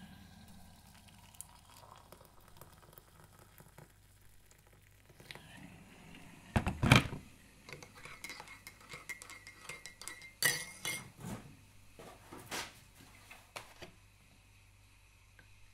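A teaspoon clinking against the inside of a cup while instant coffee is stirred. There is one heavier knock about seven seconds in, then clinks that ring, and a few separate taps near the end.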